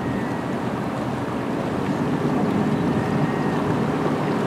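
Passenger boat's engine running steadily under way, a continuous low drone mixed with the wash of water along the hull.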